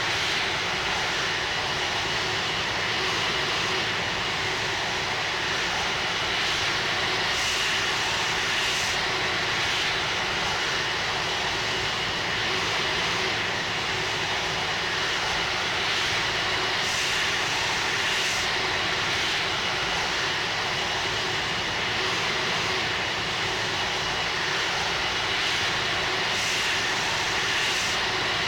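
Airbus A330-300's jet engines running with a steady, unchanging drone and a thin high tone over the noise.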